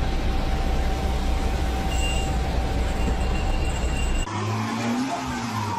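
A heavy vehicle's engine running with a steady low rumble. About four seconds in, the sound changes abruptly to a different engine running at a steady pitch.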